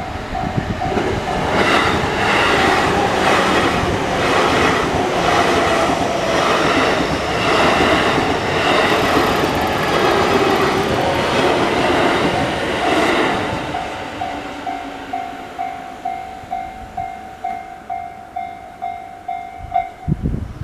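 Japanese level-crossing alarm ringing a steady, rapidly repeating ding while a train passes over the crossing. For about twelve seconds the train's wheels clack rhythmically over the rail joints, then the train fades away. The alarm keeps ringing and stops near the end.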